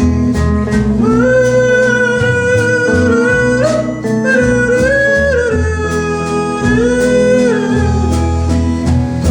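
Country-western band music: a lead line of long held notes that slide from pitch to pitch, over plucked-string and bass accompaniment.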